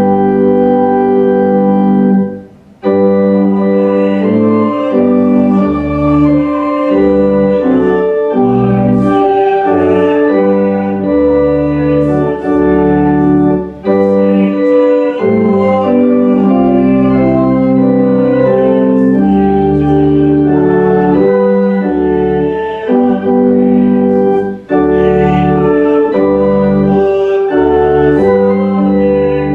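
Church organ playing a hymn in held chords that change every second or so, with a short break between phrases about two and a half seconds in.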